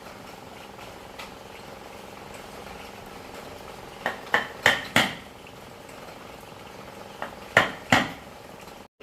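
A faint steady hum with two groups of sharp knocks: about four in quick succession a little before the middle, and three more near the end.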